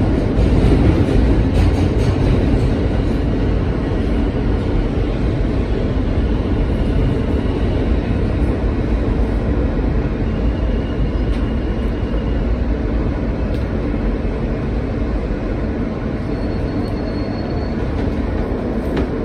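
Inside a New York City G train subway car: the steady rumble and rattle of the car running on the rails, with a faint high squeal twice, about halfway through and near the end.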